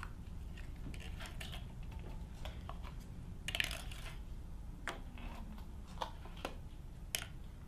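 Small plastic paint cups being opened and handled on a tabletop: scattered light plastic clicks and taps, with a small cluster about three and a half seconds in, over a faint steady low hum.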